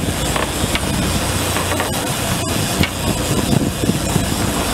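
Sportfishing boat's engine running steadily in gear at low speed, a constant low hum with wind and water noise over it.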